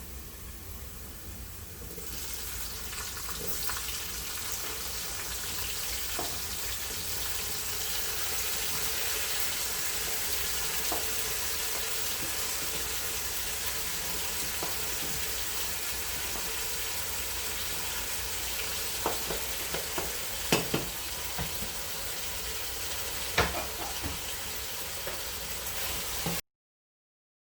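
Chopped tomatoes and onions sizzling as they fry in hot olive oil in a pan, a steady hiss that grows louder about two seconds in. A few sharp knocks sound near the end, and the sound cuts out briefly just before the end.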